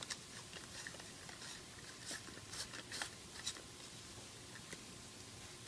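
Faint, irregular ticks and scrapes of an LED bulb's metal screw base being twisted into a lamp socket by hand.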